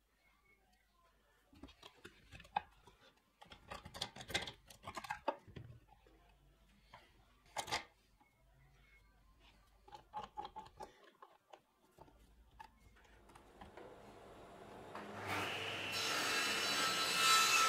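Wooden boards shifted, rubbed and knocked on a workbench, with a few sharp taps. After a short pause a table saw motor starts and spins up, its whine growing steadily louder near the end.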